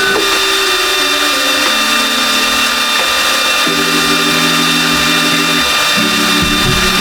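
Bambu Lab X2D 3D printer's stepper motors whining in steady tones that jump to a new pitch every second or two as the axes move at different speeds.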